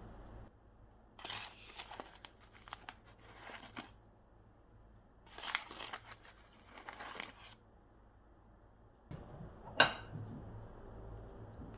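Packaging being handled, crinkling and tearing in two bursts of about two seconds each, then one sharp click near the end.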